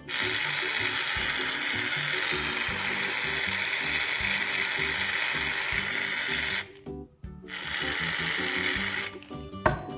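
Karänz aerosol foam can spraying with a steady hiss for about six and a half seconds, cutting off, then spraying again for about a second and a half, over background music.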